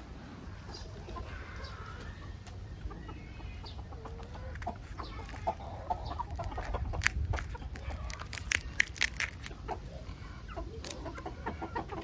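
Birds clucking and calling close by, with a run of sharp clicks in the middle.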